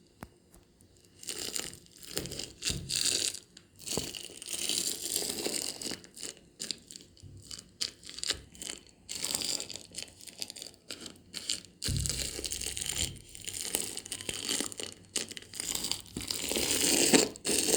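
Close-up, irregular crinkling and crunching handling noise, full of small crackles and clicks, with a low thud about two-thirds of the way through and the loudest rustling near the end.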